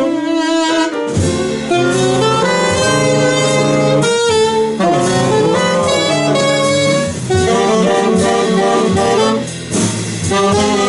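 A live jazz saxophone section of one alto and two tenor saxophones playing held notes together in harmony, the chords moving every second or two.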